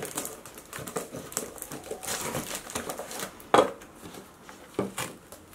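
Paper-padded mailing envelope rustling and crinkling as it is pulled open and rummaged through, its fibrous padding crumbling apart. A sharp knock about three and a half seconds in and a smaller one a second later.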